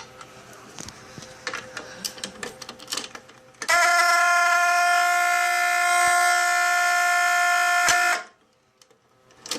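Fire alarm horn sounding one steady, unbroken tone for about four and a half seconds, starting a little over a third of the way in and cutting off abruptly. Before it come small clicks and handling.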